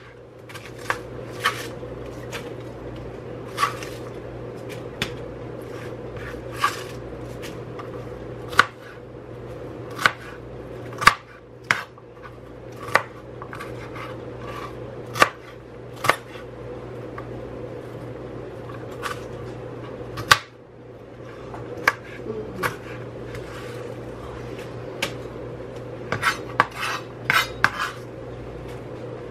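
A chef's knife chopping cabbage on a plastic cutting board: separate sharp knocks of the blade on the board at irregular intervals, with a quicker run of knocks near the end. A steady low hum runs underneath.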